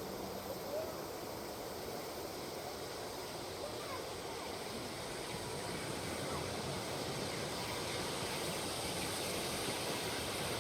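Steady hiss of steam from a standing steam locomotive, growing a little louder near the end.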